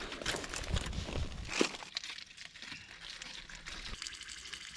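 Faint hiss and small crackles of food sizzling over a Swedish-stove log fire, a little louder in the first second and a half.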